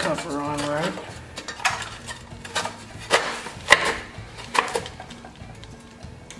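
Metal clinks and knocks of hands and tools working on a small vintage Briggs & Stratton engine: several sharp knocks spread through the middle seconds, after a brief rising-pitched tone in the first second.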